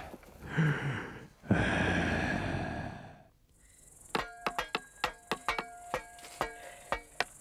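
A loud rushing noise that fades out about three seconds in. Then an axe's back is used as a hammer on a nail in a wooden cross: a quick run of sharp metal strikes, several a second, each one ringing.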